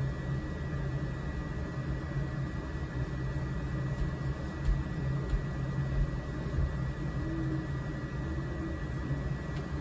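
A steady low mechanical hum, with a couple of short, faint hummed notes about seven and eight seconds in.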